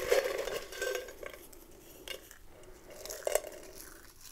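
Dried mushrooms tipped from a jar into a ceramic stew pot and pushed in among the vegetables by hand, with a rattle and ring of the jar at the start and a few scattered clinks and knocks, the sharpest a little past three seconds in.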